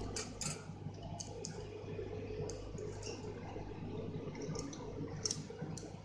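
Scattered small, sharp clicks and taps from a budgerigar's beak in its cage, about nine over a few seconds at uneven intervals, over a steady low electrical hum.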